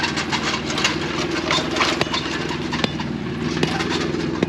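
Excavator engine running steadily, with scattered sharp knocks and clatter from the bucket working at a tree root.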